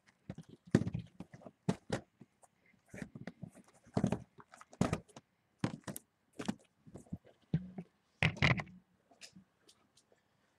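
Cardboard card boxes being handled in their case: a string of irregular thunks and scrapes, the loudest about four, five and eight and a half seconds in.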